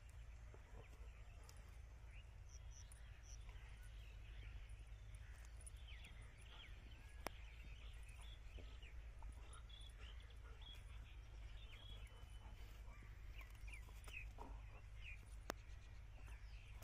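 Near silence: faint, scattered small bird chirps over a low steady hum, with two sharp clicks, about seven and fifteen seconds in.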